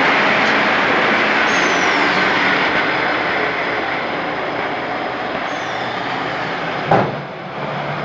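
Round silage baler running with a steady, loud mechanical noise that slowly grows fainter, broken by one sharp knock about seven seconds in.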